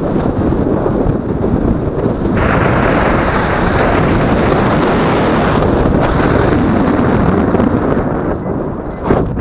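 Wind rushing over the camera microphone of a tandem paraglider in flight. The steady rush grows stronger and hissier for about three seconds in the middle and eases near the end.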